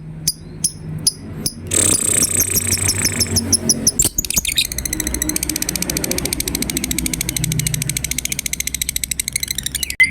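Lovebird chattering in its rapid high-pitched 'ngekek' trill. The calls start as spaced ticks, speed up about two seconds in, and become a long, very fast continuous trill from about four seconds in until just before the end.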